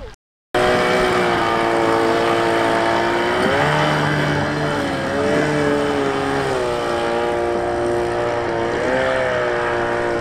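Engine running steadily with a strong, even hum, its pitch lifting briefly about three times as the throttle is blipped.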